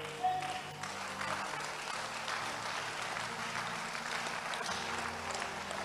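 A congregation applauding: a steady spread of clapping that builds up about a second in and holds.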